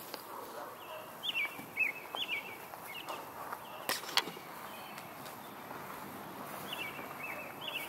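A songbird singing short, quick phrases of chirps, repeated several times with a pause in the middle, over faint rustling on grass. A couple of sharp clicks come about four seconds in.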